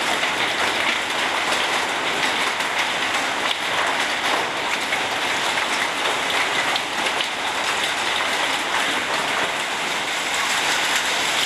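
Hail and rain falling steadily: an even, dense patter of many small impacts on the ground.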